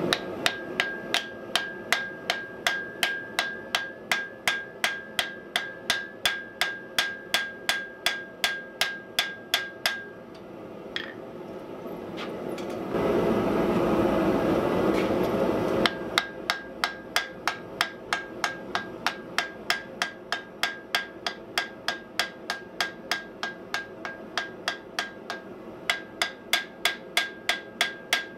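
Hand hammer forging a glowing block of hot wrought iron on a steel anvil: rapid, even blows, about four a second, many with a ringing note from the anvil. About ten seconds in the hammering stops, a steady rushing noise runs for about three seconds, and then the blows resume at the same pace.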